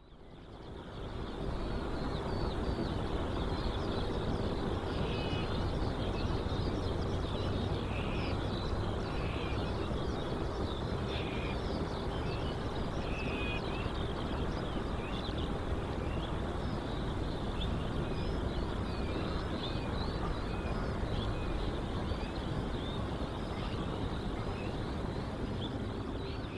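Outdoor ambience with many short bird chirps over a steady low rumble and hiss, fading in over the first second or two.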